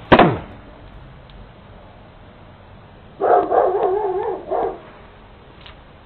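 A dog barking several times in a quick run, heard through a video doorbell's microphone, after a short loud sound right at the start.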